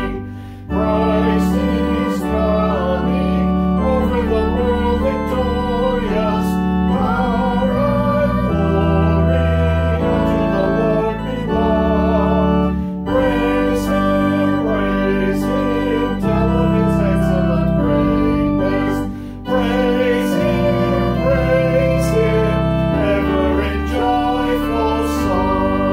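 Organ playing a hymn in full held chords that change every second or so, with brief breaks between phrases near the start and about two-thirds of the way through.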